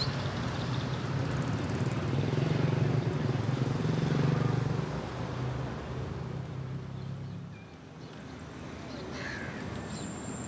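Street traffic: a steady low hum of car and motorbike engines, loudest in the first half and fading about seven seconds in. Near the end a bird calls briefly.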